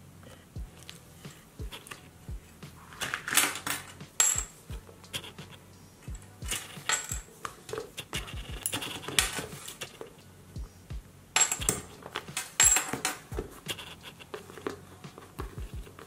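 Hands handling a leather-bound travel journal: the book is closed and its leather wrap cord wound around the cover, giving rustles and clicks with the light clink of a small metal key charm, in several separate bursts.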